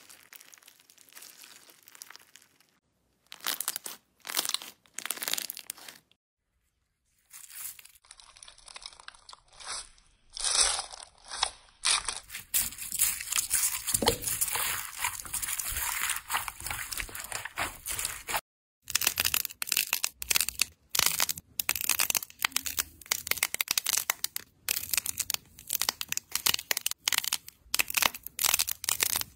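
Hands squeezing and pressing crunchy slime, first a slime packed with cut plastic straw pieces, then one full of foam beads, making crinkling, crackling and popping sounds in quick bursts. There is a short silent gap about six seconds in.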